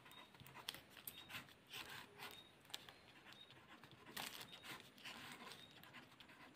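Faint scratching of a marker pen drawing on paper, in short irregular strokes.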